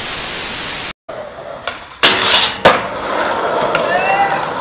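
Television static hiss that cuts off suddenly just under a second in. After a short silence, skateboard sounds follow: two sharp board clacks about two-thirds of a second apart, then the board's wheels rolling.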